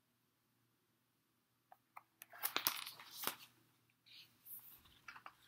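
Paper rustling as a picture book's page is turned, with a couple of sharp clicks of handling first. The rustle is loudest about two to three seconds in and quieter near the end.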